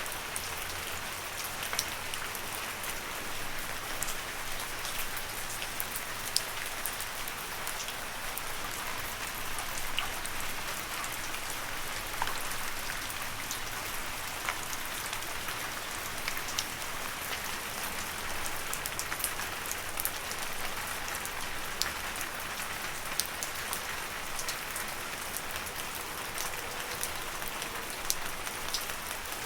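Steady rain falling on leaves: an even hiss with many separate drop ticks scattered through it.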